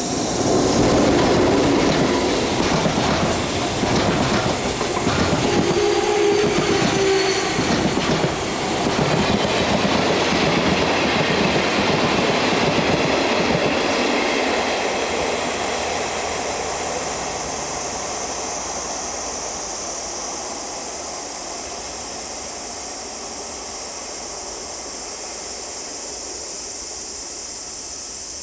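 Freight train passing, its wheels clacking rhythmically over rail joints, loudest in the first half and fading away as it recedes.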